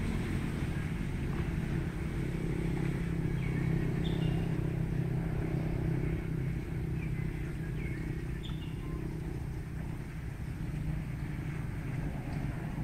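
Steady low rumble of outdoor background noise, with a few short, high, falling chirps.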